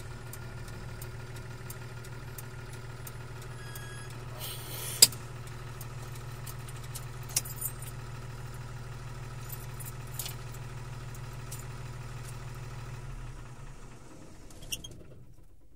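A 1984 Bedford 10-ton truck's six-cylinder diesel engine running steadily, heard from inside the cab, with a sharp click about five seconds in and a few lighter clicks. About thirteen seconds in the engine is switched off and the sound dies away.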